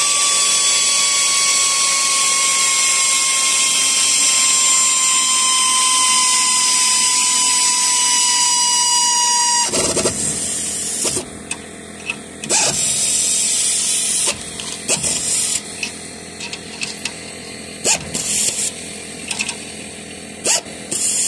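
Power drill running nuts up threaded clamp bolts: one long whine for about ten seconds, its pitch sinking slowly as the nut tightens, then a string of short bursts.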